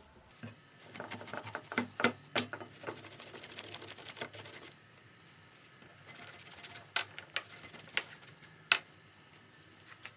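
A cloth rubbed briskly over a wooden knife-handle scale, in two spells of scratchy wiping, with several sharp knocks, the loudest two about seven and nine seconds in.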